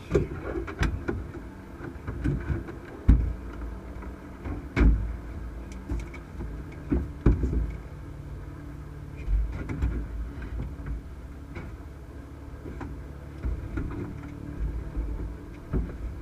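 Cessna 152's four-cylinder Lycoming engine running steadily, with irregular thumps and knocks throughout.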